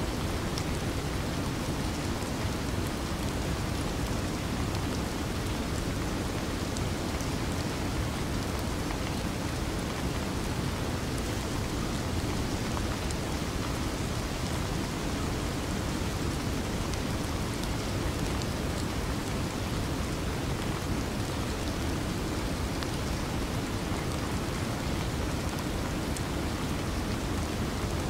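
Steady, unchanging rain-like rushing noise, deep and even, with faint scattered ticks like drops.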